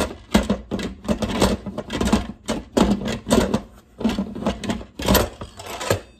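Instant Pot lid being seated and twisted round on the pot to lock it: a run of irregular scraping and clacking of the lid against the rim, stopping just before the end.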